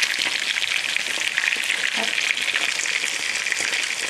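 Water at a rolling boil in a steel pot, bubbling and crackling steadily as pierogi cook in it.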